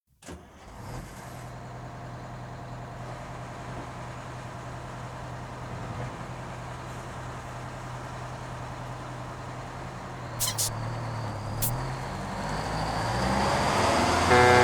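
Bus engine idling steadily, with two short sharp hisses of released air near the end.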